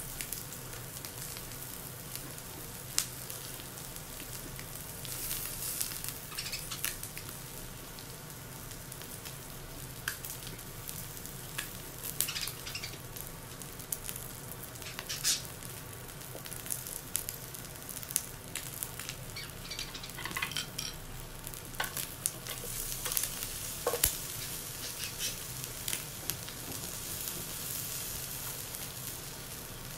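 Meat sizzling on a tabletop yakiniku grill plate: a steady frying hiss with scattered sharp pops and crackles.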